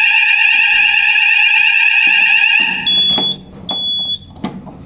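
Electronic fire alarm sounders sounding a loud, fast-warbling tone, set off from a manual call point for the weekly test, cutting off about two and a half seconds in. Two short high beeps and a few clicks follow.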